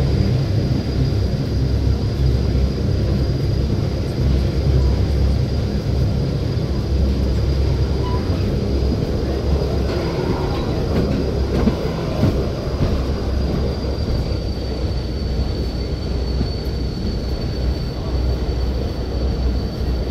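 Electric rack-railway train of the Gornergratbahn running, heard on board: a steady low rumble and rolling noise with a thin high whine. The whine drops slightly in pitch about two-thirds of the way through.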